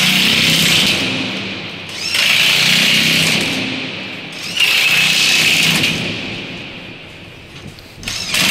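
Power impact wrench tightening bolts along the seam between a steel tower silo's wall plates, in repeated bursts: one under way at the start, others about two seconds in, halfway through, and near the end.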